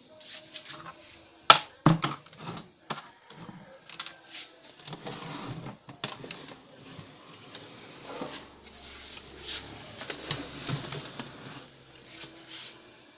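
Irregular clicks, knocks and rattles of a CRT television's chassis and plastic cabinet being handled on a workbench, with a sharp knock about one and a half seconds in as the loudest sound.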